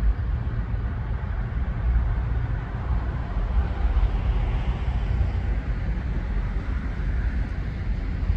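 A locomotive approaching along the track, its engine a steady low running rumble with a broad mechanical hiss over it.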